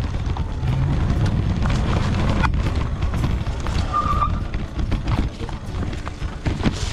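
Ride noise from a mountain e-bike on a rough dirt trail: steady low rumble of wind and trail vibration on the camera microphone, with frequent clicks and rattles from the bike over roots and stones. A brief high squeak comes about four seconds in.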